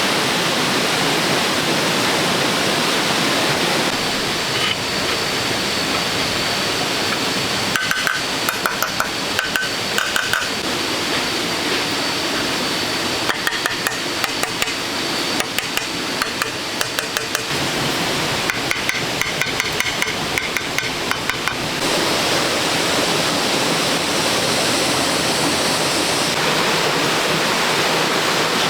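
Steady rush of running water, with runs of sharp knocks and clinks, some ringing briefly, from about eight seconds in until about twenty-two seconds in, like hard objects being struck together.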